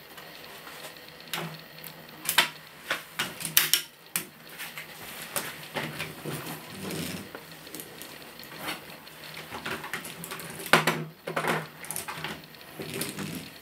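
LEGO Technic truck model rolled by hand over plastic gear racks set into the road: gears meshing with the racks give irregular plastic clicking and ratcheting as they work the tire lift arm and dumper, with a few sharper clacks.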